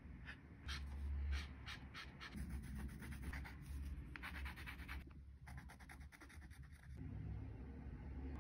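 Paintbrush scratching and dabbing on textured watercolour paper in a run of short strokes, with a dense flurry about halfway through. A steady low hum runs underneath.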